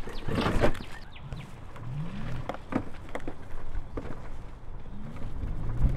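Electric moped pulling away from a standstill: a short rush of noise about half a second in, then a low hum that rises in pitch as it speeds up, twice, with a few light clicks and knocks.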